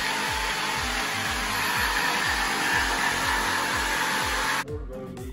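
A steady rushing noise with a few faint steady tones, like an electric blower running, over background music with a beat of repeated falling bass notes about three times a second. The rushing noise cuts off abruptly about four and a half seconds in.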